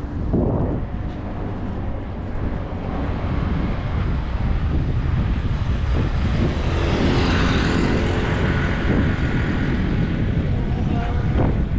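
Steady low city traffic rumble with a passing vehicle swelling loudest about seven seconds in.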